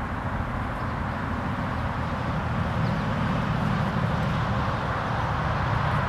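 Steady outdoor background noise: a low rumble with an even hiss above it.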